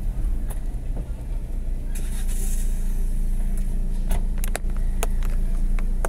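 A car's engine and road noise heard from inside the cabin while driving, a steady low hum. A few sharp clicks come about four to five seconds in.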